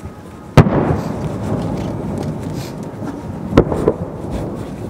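Aerial firework shells going off: one loud bang about half a second in with a long rolling echo, then two sharper bangs close together near the end.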